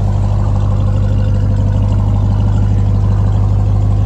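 A vehicle engine running steadily close to the microphone: a loud, even drone that does not change in pitch or level.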